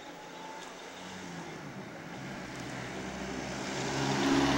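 A motor vehicle approaching along the road: its engine and tyre noise grow steadily louder as it nears.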